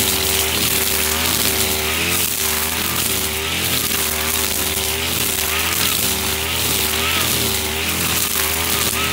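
Husqvarna 542RBS backpack brushcutter's two-stroke engine running near full throttle, its pitch dipping and recovering every second or so as the nylon trimmer line bites into thick grass, with a steady whir from the spinning line.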